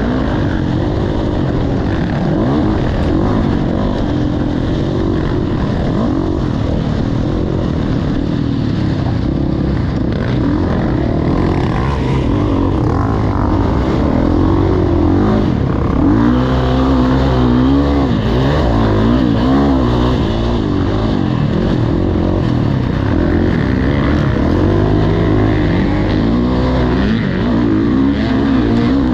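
Motocross bike engine running hard, its pitch rising and falling as the throttle is worked and gears change.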